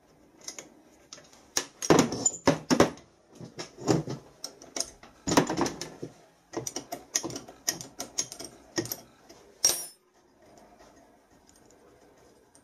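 Steel spanner clinking and knocking against the bolts and clamp plates of a turbocharger as they are worked loose: a run of irregular metallic clinks that stops about ten seconds in.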